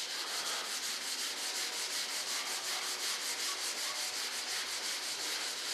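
Hand sanding a primer-coated fiberglass RC jet wing with sandpaper in quick, even back-and-forth strokes, several a second. The guide coat is being sanded off to show up dips and waves before paint.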